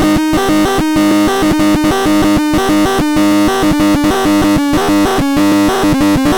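Electronic music: a synthesized melody of short notes in a steady, even rhythm.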